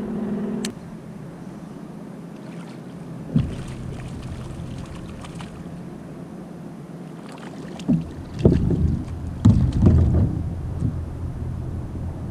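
Knocks and bumps on a sit-on-top fishing kayak's hull as rod and gear are handled. There is one sharp knock about three seconds in and a cluster of louder bumps near the end, over a low steady hum.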